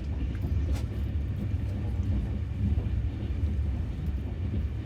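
Steady low rumble of a passenger train running, heard from inside a sleeper carriage, with a faint click about a second in.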